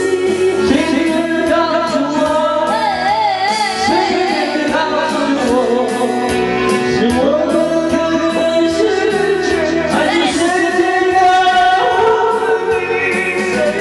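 Karaoke singing: a voice sings a melody into a microphone over a backing track, with a wavering vibrato on a held note a few seconds in.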